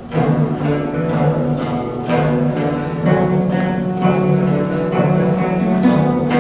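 Guzheng playing a fast passage of densely repeated plucked notes over sustained low tones, coming in loudly just after the start.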